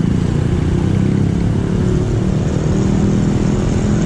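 Motorcycle engine running steadily while riding in traffic, with road and wind noise as heard from on the bike.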